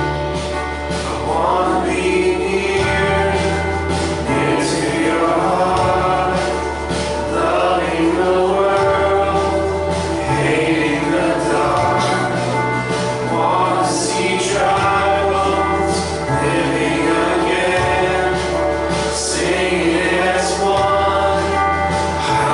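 A worship song sung by a group of voices over instrumental backing, with long held bass notes that change every second or two beneath the melody.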